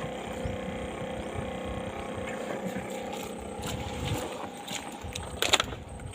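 A motor running steadily, easing off after about four seconds, with a sharp click near the end.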